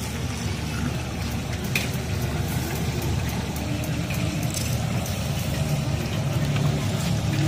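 Steady low roar of a gas wok burner under a wok of deep-frying fish, with the oil sizzling.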